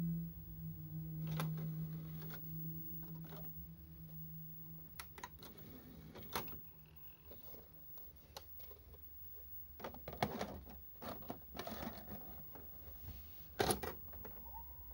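Sony SLV-D980P DVD/VCR combo's disc tray mechanism. A low steady hum for about the first half, then a run of mechanical clicks and knocks as the tray closes and the disc loads, with the loudest click near the end.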